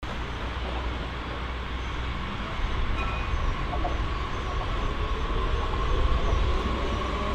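DB S-Bahn electric multiple unit running through a station: steady rumble of the train with a whine from its electric traction motors. In the second half the whine splits into several tones rising in pitch as the train gathers speed.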